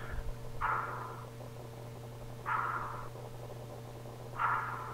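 Faint backing music of the song she is singing along to, heard as three short swells about every two seconds, over a steady low electrical hum.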